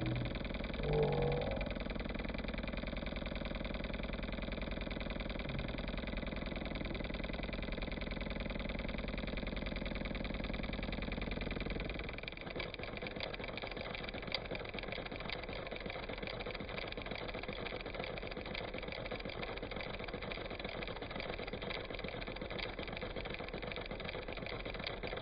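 An engine running steadily; about halfway through its low rumble drops away, leaving a lighter, rapidly ticking mechanical run.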